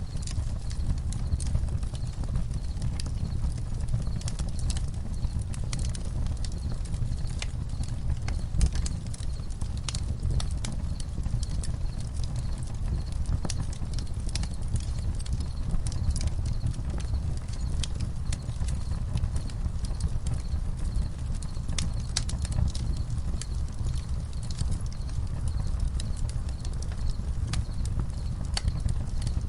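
Campfire crackling: irregular sharp pops and snaps over a low steady rumble, with crickets chirping faintly in an even rhythm.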